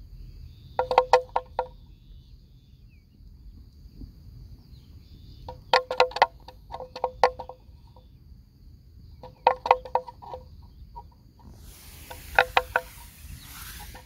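Small metal bell clanking in short bursts of several rapid strokes, each burst ringing briefly, four or five times a few seconds apart.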